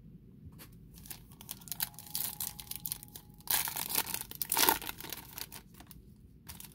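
Foil-lined Topps baseball card pack being torn open by hand, its wrapper crinkling. The crinkling starts about a second in and builds to the loudest tearing in the middle, then thins out to a few scattered crinkles as the pack comes open.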